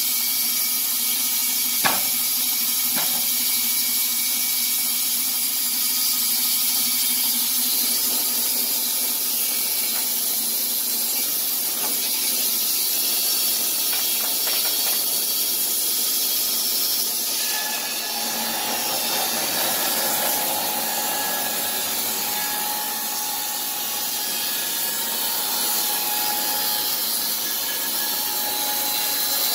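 Electric-motor Wood-Mizer LT15 band sawmill running, its band blade cutting along a board with a steady hissing whir. A single sharp knock comes about two seconds in.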